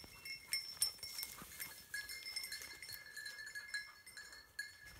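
Small bell on a hunting setter's collar tinkling faintly and irregularly as the dog moves through the cover.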